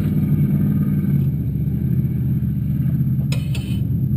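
Off-road race car engine running steadily, with a short rattle about three seconds in.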